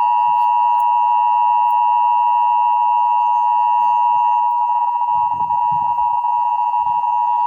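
Emergency Alert System attention signal: a loud, steady two-tone alarm held unchanged throughout, the tone that precedes a broadcast required monthly test message.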